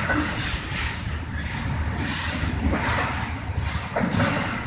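Autorack freight cars rolling slowly past on the rails: a steady low rumble of wheels on track, with a sharp click near the start and another about four seconds in.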